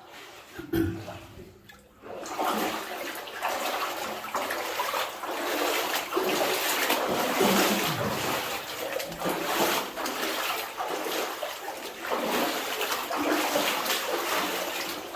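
Water splashing and sloshing as someone wades through a flooded mine level, after a single thump just under a second in.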